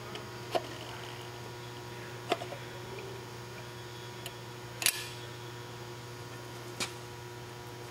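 Four short metallic clicks about two seconds apart as a clutch release bearing and fork are slid onto the transmission's guide tube and the fork is clipped onto its pivot ball. The sharpest click comes about five seconds in. A steady electrical hum runs underneath.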